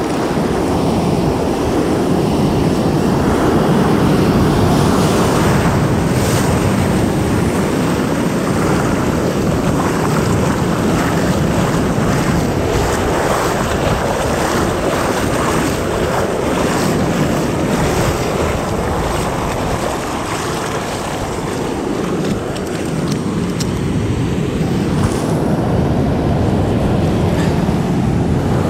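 Ocean surf washing in foamy shallows around the listener, with wind buffeting the microphone; a steady, loud rush of water.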